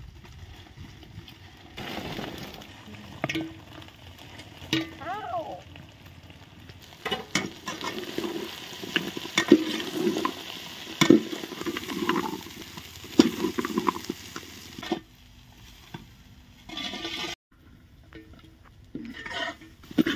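A spatula scraping and stirring frying onions, green chillies and ginger-garlic paste in a hot kadai, the oil sizzling, in irregular strokes with a short lull near the end.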